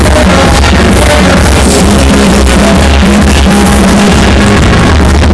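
Loud dance music with heavy bass, played through a sonidero sound system's stacked line-array speakers.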